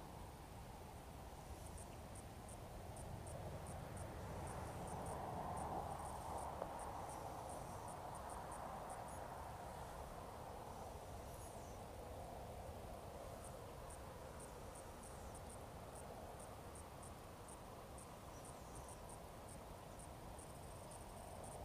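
Crickets chirping faintly in short high pulses, about two to three a second, in two long runs with a pause between them. Under them a low background hum swells and fades.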